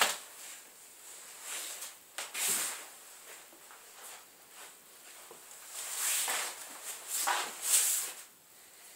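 Irregular bursts of rustling and shuffling from a person moving about with the phone, a cluster about two seconds in and another, louder one near the end, quieter in between.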